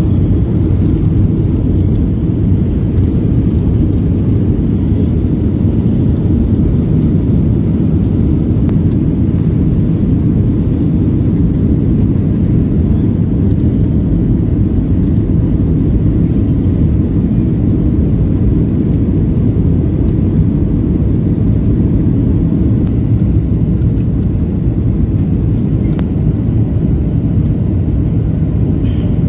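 Steady low cabin noise of a jet airliner descending with its flaps extended: engine and airflow noise heard from a window seat, even and unbroken.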